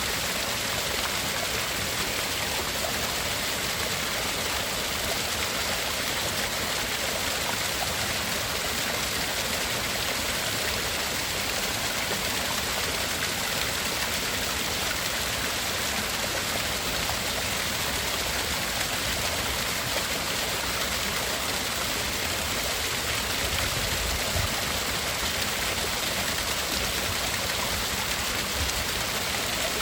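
Steady, unchanging rushing noise for tinnitus masking, like running water, brightest in the upper range and with two narrow gaps high in the treble.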